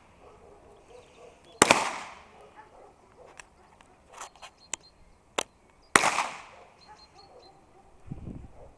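Two loud blank-pistol shots about four seconds apart, each a sharp crack that dies away over about half a second, with a few fainter sharp cracks in between.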